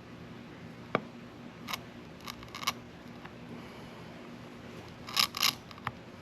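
A few sharp clicks and short scraping strokes from small hand tools worked on a fishing rod, with the loudest cluster about five seconds in, over a faint steady hum.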